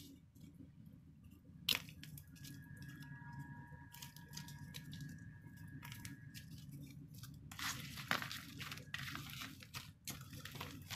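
Crisp outer shell of soft-core clay balls cracking and crumbling under squeezing fingers. There is a sharp snap about two seconds in, scattered small crackles, then a dense run of crunching and crackling from about seven and a half seconds on.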